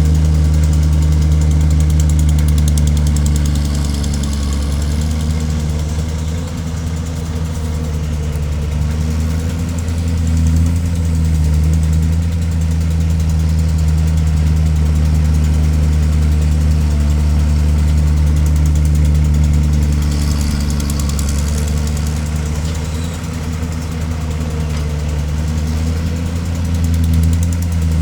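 Excavator's diesel engine running steadily with a deep, even hum that rises and dips a little with load, and a brief hiss about two-thirds of the way through.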